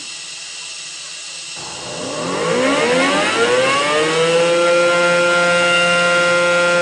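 Car wash machinery: over a steady hiss, an electric motor starts about a second and a half in. Its whine rises in pitch and levels off into a steady drone.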